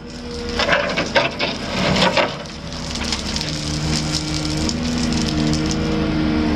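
Steel excavator bucket teeth scraping and crunching leftover sand and grit along a steel dump truck bed, in several rough bursts over the first two seconds or so. After that, a diesel engine hums steadily.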